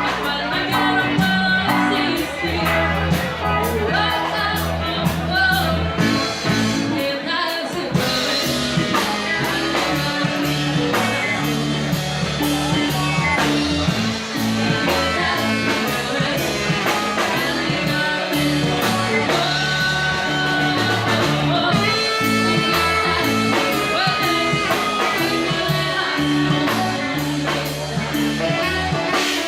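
A live band playing a rock song: a singer over guitar, a moving bass line and drums.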